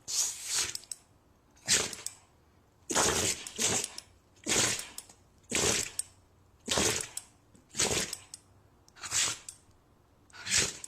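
Dog sneezing over and over: nine short, hissy sneezes in a steady series, about one every second and a bit.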